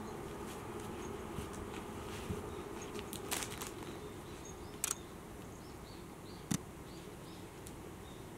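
Kitten batting and kicking at a string cat toy: scattered scratchy rustles and sharp clicks, the loudest a cluster about three and a half seconds in, a double click near five seconds and a single click about six and a half seconds in, over a steady low hum.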